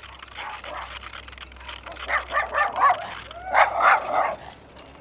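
A dog barking in two short runs of barks, the first about two seconds in and a louder run near the four-second mark.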